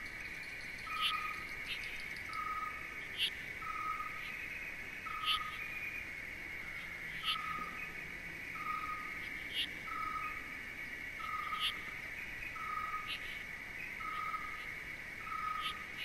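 Outdoor insect chorus: a steady high drone, with a lower note pulsing regularly about every 0.7 seconds and short sharp chirps about once a second.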